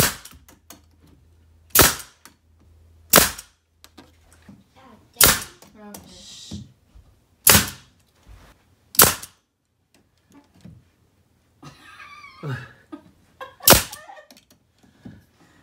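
Pneumatic nail gun firing finishing nails through MDF trim, seven sharp shots spaced a second or two apart, with a longer pause before the last one.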